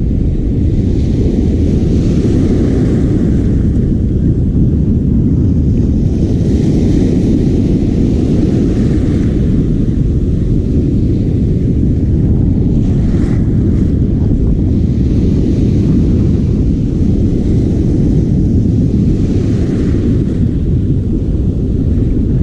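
Wind buffeting the microphone: a loud, steady low rumble, with a fainter hiss that swells and fades every few seconds.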